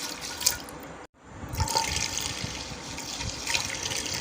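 Chickpea stock being poured from a glass into a cooking pot, a steady splashing pour that breaks off briefly about a second in and then carries on.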